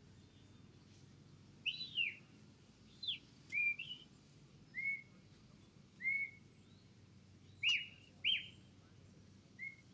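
Handler's shepherd whistle giving commands to a working sheepdog: a series of about ten short whistle notes, some sliding down in pitch and some rising and falling, spaced roughly a second apart.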